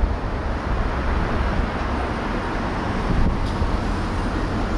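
Steady low rumble of a vehicle driving along a city road: engine and tyre noise, with traffic around it.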